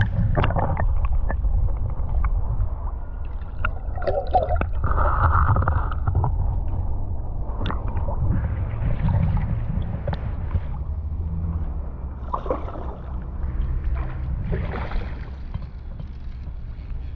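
Muffled low rumble and gurgling of river water around a GoPro held under the surface, with a few faint knocks.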